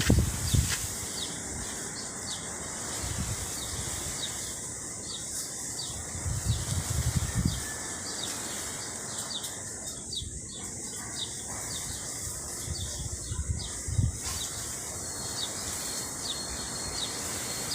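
Strong wind blowing in gusts that buffet the microphone with a low rumble, twice in the middle, over a steady outdoor background of birds chirping.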